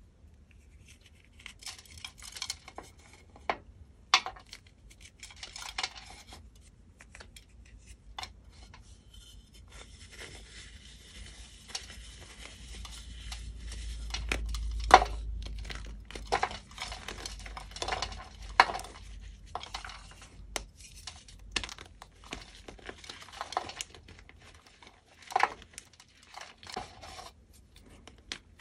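Dyed gym chalk blocks being broken and crushed by hand: irregular sharp cracks and crunches. A longer stretch of dense, powdery crumbling comes in the middle, and the loudest snap falls about halfway through.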